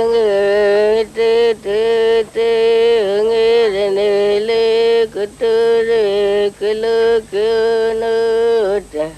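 A voice chanting in long held notes on a nearly level pitch, in a string of short phrases broken by brief pauses.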